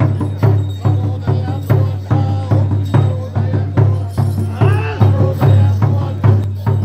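Steady drumming, about two to three beats a second, under chanting voices whose pitch rises and falls.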